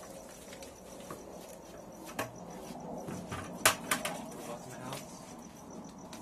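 A few sharp knocks and clinks of hard objects being handled and set down, the loudest a little past halfway, over a steady background of crickets chirping.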